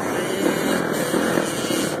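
Dirt bike engine running loudly, with a rough, raspy mechanical noise.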